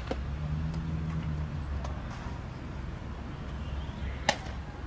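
A bat cracks sharply against a baseball once, about four seconds in, hitting a ball for fielding practice. A steady low hum runs underneath.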